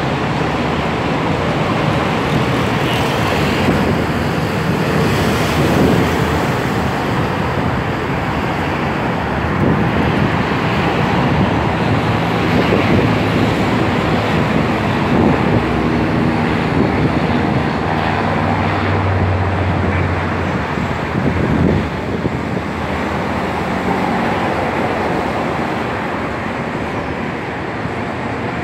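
Steady traffic noise with engine hum, the hum clearest in the middle stretch.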